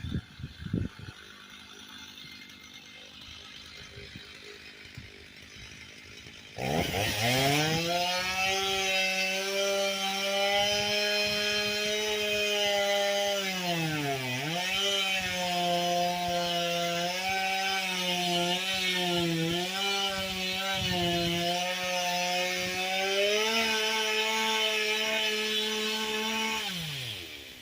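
STIHL MS 290 chainsaw's two-stroke engine revving up sharply about seven seconds in and running at high, steady revs. The pitch dips briefly about halfway, rises again later, then winds down near the end.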